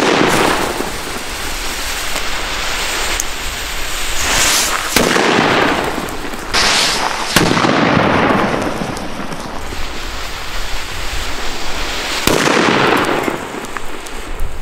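El Gato Supergato 1.7-gram cylindrical firecrackers (truenos) going off one after another: four sharp bangs, at the start, about five seconds in, about seven and a half seconds in and about twelve seconds in. Each bang trails off over a second or two.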